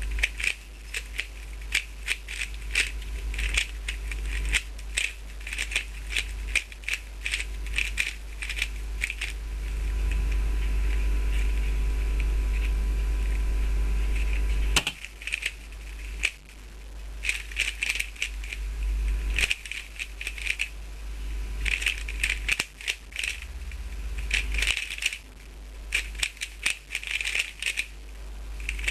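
Gu Hong 3x3 speedcube being turned fast in a timed solve: rapid trains of plastic clicks and clacks, thinning out for a few seconds partway through before picking up again. A steady low hum runs underneath.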